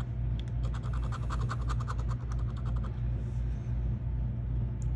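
A coin scraping the latex coating off a scratch-off lottery ticket in quick back-and-forth strokes, several a second, stopping about three seconds in. A steady low hum runs underneath.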